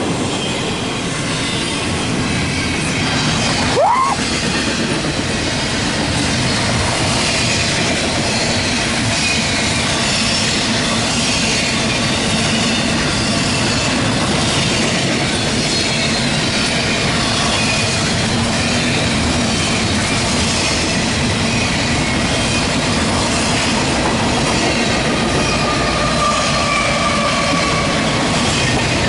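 CSX Q138 intermodal and autorack freight train rolling past: a steady rush of steel wheels on rail with clickety-clack from the passing cars. A short rising whine about four seconds in, and a faint high wheel squeal near the end.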